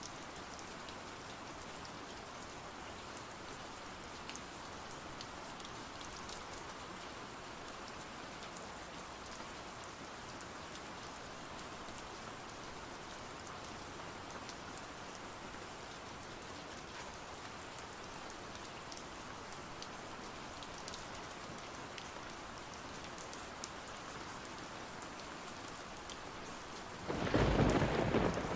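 Steady rain with a few faint ticks scattered through it; near the end a loud clap of thunder breaks in and rumbles on.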